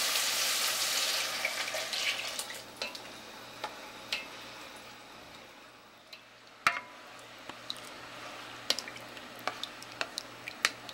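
Bacon and vegetables sizzling in a pot fade away over the first two seconds as coconut milk goes in. Then a spoon clicks and knocks against the enamelled cast-iron pot while the liquid is stirred, with one sharper knock about two-thirds through.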